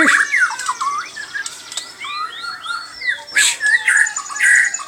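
White-rumped shama (murai batu) singing a varied, busy song of whistled notes, quick rising and falling glides and trills, mixed with a few harsh notes, in a song its keeper calls strange.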